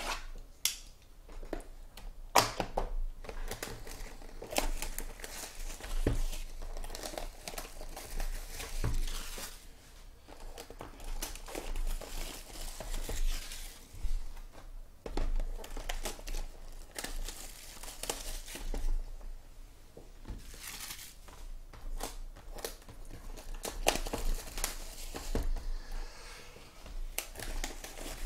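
Shrink-wrap plastic being torn and peeled off sealed trading-card boxes by hand, crinkling and tearing in irregular bursts with short sharp crackles.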